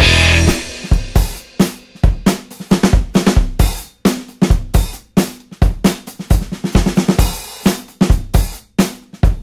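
Background music: a dense passage ends about half a second in, giving way to a drum-kit beat of kick drum, snare and cymbals.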